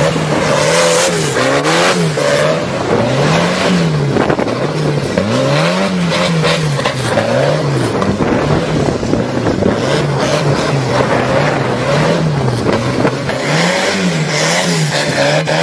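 Turbocharged Volvo tractor engine revving hard and falling back over and over, about once a second, as the tractor spins its wheels in burnouts and donuts.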